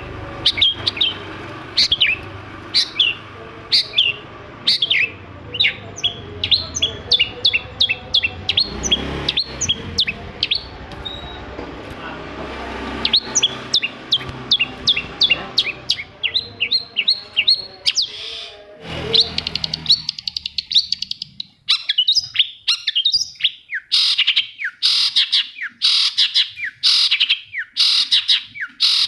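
Long-tailed shrike (cendet) singing in rapid runs of short, sharp, downward-sweeping notes. A low background rumble underlies the song and drops out about two-thirds of the way through, leaving the bird alone.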